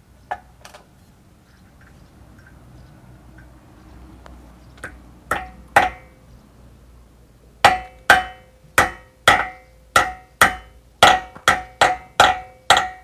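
Steel hammer striking a steel key into the keyway of an electric motor's shaft. A few scattered taps come first, then from about halfway a run of about a dozen blows, roughly two a second, each with a brief metallic ring.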